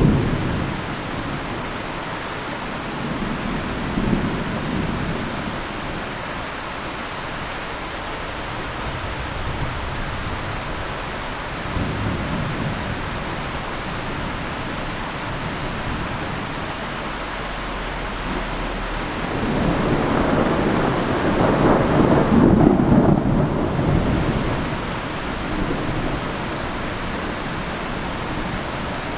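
Steady heavy rain hiss with repeated rolls of thunder. Shorter rumbles come at the start, around 4 s and around 12 s, and a long rolling peal builds from about two-thirds of the way in, the loudest moment, before fading.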